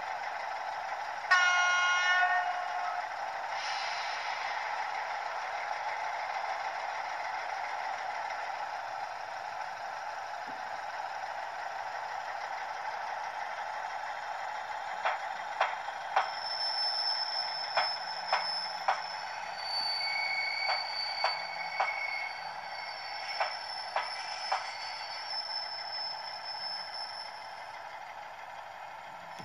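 Model PKP SU46 diesel locomotive's sound system: a short two-tone horn blast, high then low, about a second in. Then the diesel engine sound runs steadily through the model's small speaker while the locomotive moves slowly. In the second half come a run of sharp clicks and some thin high steady tones.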